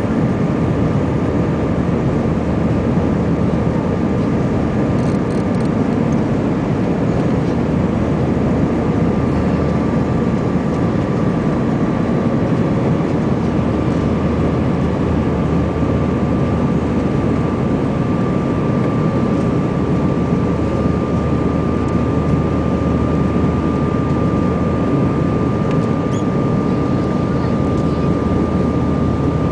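Airbus A320-family airliner heard from a window seat over the wing in flight: a steady cabin roar of engines and rushing air, with a thin, steady whine from the engines that grows stronger after about six seconds.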